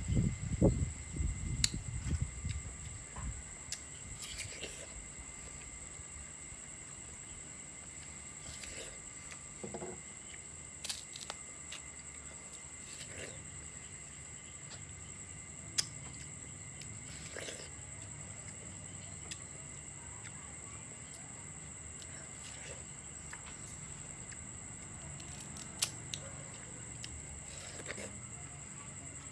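A person biting and chewing juicy yellow watermelon, loudest in the first few seconds, then quieter with occasional short smacks and clicks. A steady high-pitched insect trill runs underneath.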